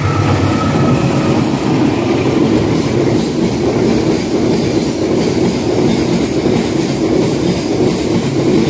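A loaded cement freight train's wagons rolling past at speed: a steady rumbling rattle of wheels on rail. The diesel locomotive's engine hum fades in the first second.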